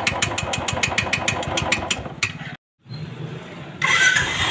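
Royal Enfield Bullet single-cylinder engine idling with a fast ticking, about six or seven ticks a second: the 'UC sound' fault. After a short break about two and a half seconds in, the engine runs on with the tick gone, the fault cured, and a louder rush of noise comes in near the end.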